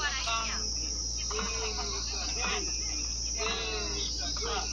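A steady, high-pitched insect chorus, like crickets, drones on under people's voices that come and go.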